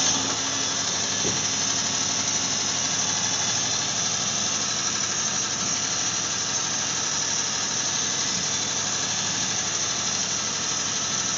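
Dodge Dart's slant-six engine idling steadily, with a steady high-pitched hiss over it.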